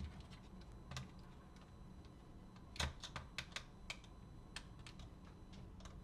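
Small screwdriver working on a screw in a Sony Walkman's plastic case: faint, scattered light clicks and ticks, irregular, with the sharpest click a little under three seconds in.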